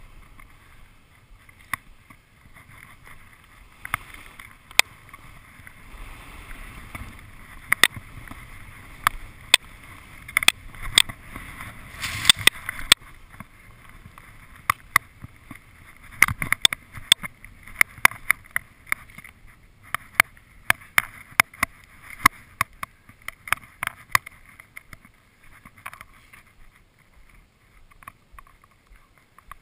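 Skis running and turning on groomed snow and fresh powder: a steady swishing hiss that swells briefly about twelve seconds in, with many sharp clicks and knocks that come thickest in the second half.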